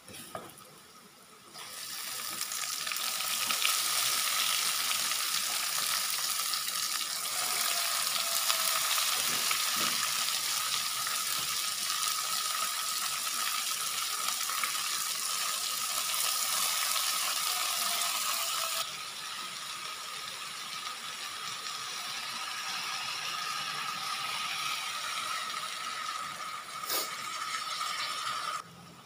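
Water spinach (kangkung) being stir-fried, sizzling in a hot pan. The sizzle starts about two seconds in and eases somewhat after the middle, with a steady thin tone underneath and a single click near the end.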